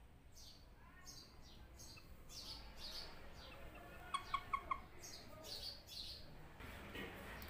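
Small birds chirping, a string of short, high, falling chirps repeated over and over, with a quick run of four short lower notes about four seconds in.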